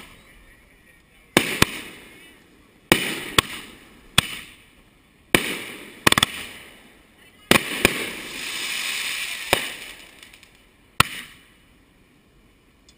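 Consumer aerial fireworks going off, with shells launching and bursting in about nine sharp bangs at uneven intervals, each dying away quickly. A couple of seconds of crackling follow the bang about seven and a half seconds in.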